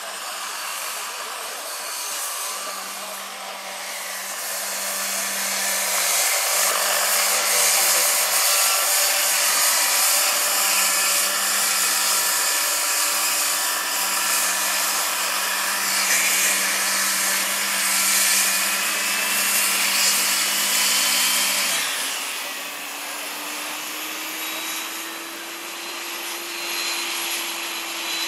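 Large electric scale model helicopter (Vario SA-341/342 Gazelle, 2.36 m rotor) flying low: a steady whirring rush of rotors over a hum from the electric drive. About two-thirds of the way through, the sound drops in level and the hum gives way to a slowly rising tone as the model sets down.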